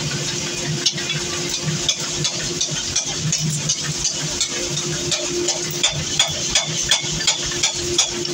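Mechanical power hammer forging a red-hot steel cleaver blank: rapid metal-on-metal blows, about three a second, sharper in the second half, over the steady hum of the hammer's electric motor and flywheel drive.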